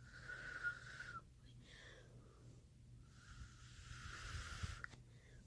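Two breathy exhalations with a faint whistling tone. The first lasts about a second; the second starts about three seconds in and lasts nearly two seconds.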